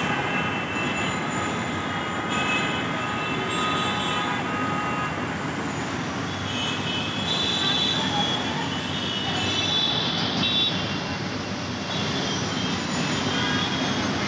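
Steady city traffic noise with frequent vehicle horns tooting on and off.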